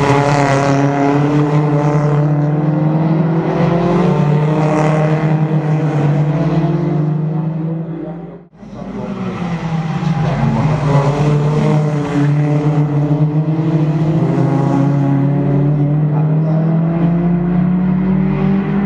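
Engines of Toyota Altis one-make race cars running hard as they pass through a corner, the pitch sliding down and then climbing again. The sound drops out abruptly for a moment about eight and a half seconds in, then picks up again.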